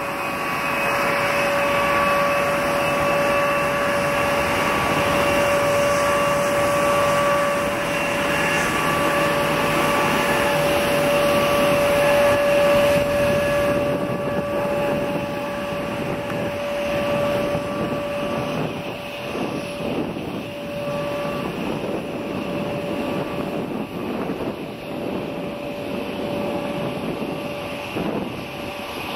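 Boeing C-17 Globemaster III's four Pratt & Whitney F117 turbofan engines running through touchdown and rollout. A steady jet whine with held tones over a broad rush, loudest in the first half and easing off after about fourteen seconds.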